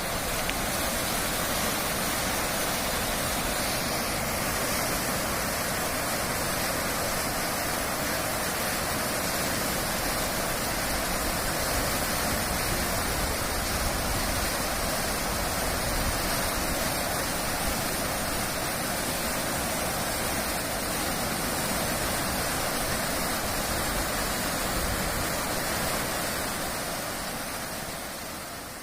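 Rain-swollen water rushing in a steady, loud flow, fading out near the end.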